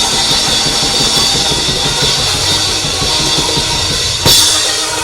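Band music driven by a drum kit playing a steady beat, with a cymbal crash about four seconds in.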